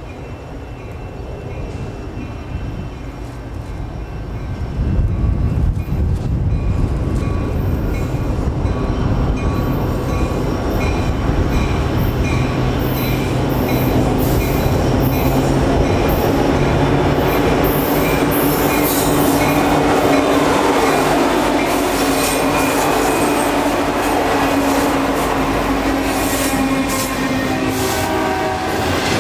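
CN diesel freight locomotives approaching and passing, growing louder over the first five seconds, then a long string of intermodal well cars with double-stacked containers rolling by. The steel wheels rumble along the rails with some drawn-out squealing in the second half.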